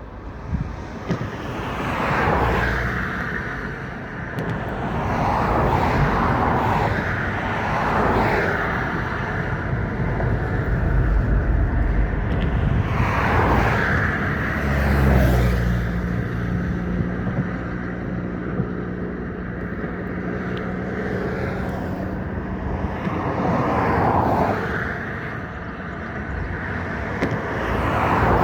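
Road vehicles passing one after another, each a swell of noise lasting a couple of seconds, with an engine humming steadily for several seconds in the middle.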